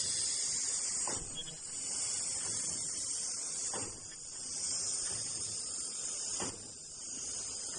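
Automatic KN95 mask-making line running: a steady high hiss over a low machine rumble, with a short knock about every two and a half seconds as the machine cycles, three times.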